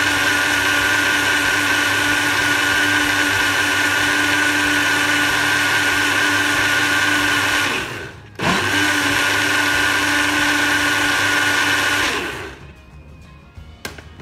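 Countertop blender motor running steadily as it blends a thick kiwi, milk and chia seed smoothie. It cuts out briefly about eight seconds in and starts again, then winds down and stops about four seconds later. A few light knocks follow as the jar is handled.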